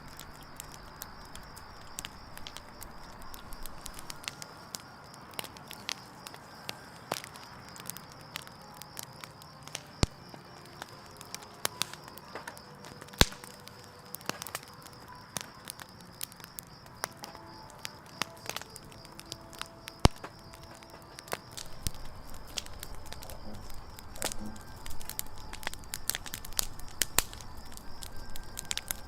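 Wood campfire burning, crackling with frequent sharp pops, the loudest about 13 and 20 seconds in. The crackling grows busier and louder in the last several seconds. A faint steady high tone runs underneath.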